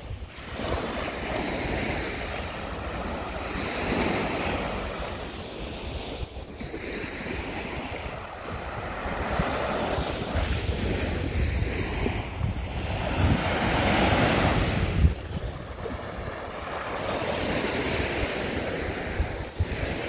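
Small sea waves washing onto a sandy beach, each surge swelling and falling away every few seconds, with wind rumbling on the microphone.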